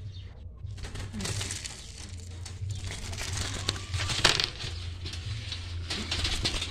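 Close rustling, crinkling and scraping as the wire bird trap and its grain-covered floor are handled right by the microphone, with a sharper knock about four seconds in, over a low steady hum.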